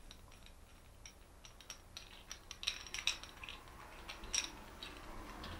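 Faint, light metallic clicks and taps of brass pressure-washer gun valve parts being handled and screwed together on the metal lance tube, with a few sharper clicks around the middle and a little before the end.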